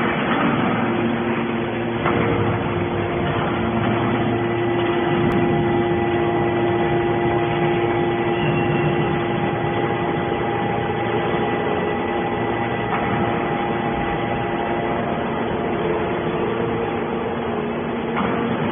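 Hydraulic scrap metal baler running: a steady machine drone with several held whining tones over it.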